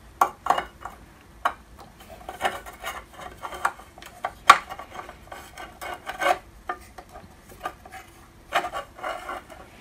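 A small machined knee brake piece being worked into its slot in a drill press knee by hand: irregular scrapes, rubbing and clicks of hard parts against each other, with the sharpest click about halfway through.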